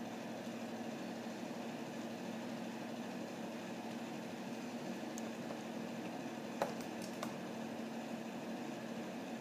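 Steady mechanical hum with a constant low tone in the room. Two sharp clicks about two-thirds of the way in: a Goffin's cockatoo knocking against a glass of water as it dips and chews its wood block.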